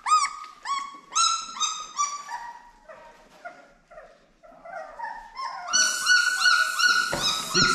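Two-week-old pit bull puppy crying in high, arched squeals: a quick run of short cries, a quieter spell, then a loud, unbroken wail from about six seconds in.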